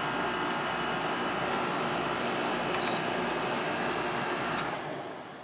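Window air conditioner running with a steady hum. A single short, high beep about three seconds in marks it being switched off, and the running sound dies away near the end as it winds down.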